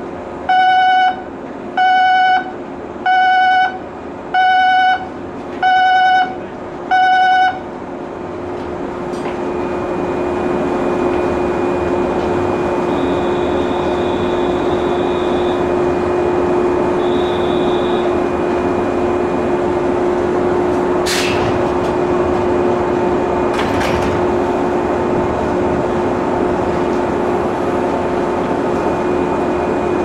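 Seven short electronic beeps about a second apart, then the steady electrical hum of a stopped JR 103 series electric train, which swells over a few seconds and holds. Two sharp clacks a few seconds apart come as the sliding doors shut.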